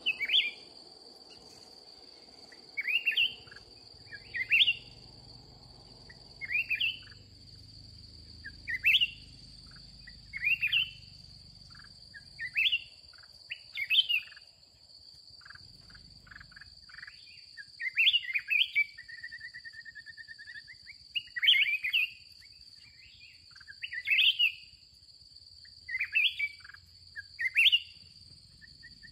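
Black-crested bulbuls singing short, loud, rising phrases, about one every two seconds, over a steady high-pitched insect drone.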